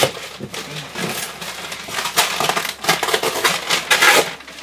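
Postal packaging being pulled and crumpled off a cardboard box: irregular rustling and tearing noises, with several louder bursts in the second half.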